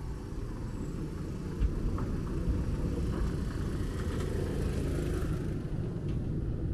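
Small river ferry's motor running at the landing, a steady low rumble, with a sharp knock about one and a half seconds in.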